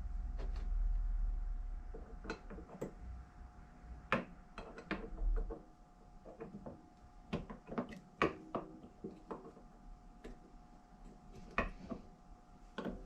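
Irregular small clicks and taps of metal parts and hand tools on a workbench as the injector housing of a Rochester throttle body is fitted and its screws started. A low rumble in the first two seconds and a faint steady hum underneath.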